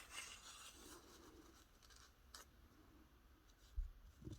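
Near silence with faint rustling of paper and stickers being handled on a table, and a single light tick about two and a half seconds in.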